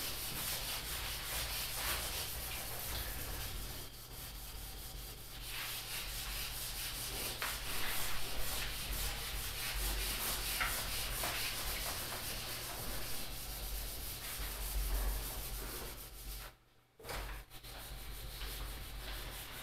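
Marker writing being wiped off a whiteboard, a steady scrubbing rub that breaks off briefly near the end.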